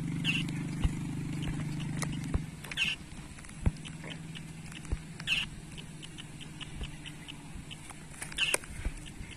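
Short high chirps of a small animal, repeating about every two and a half seconds, with scattered light clicks. Under them runs a low steady hum that drops away about two and a half seconds in.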